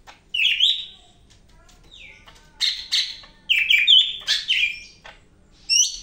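Caged cucak hijau (green leafbird) singing loud whistled phrases with falling glides, in several bursts, ending with a short sharp rising note.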